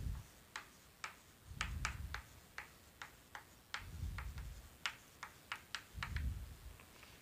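Chalk tapping and clicking on a blackboard as a word is written: sharp, irregular ticks, a few a second, with a few soft low thumps in between.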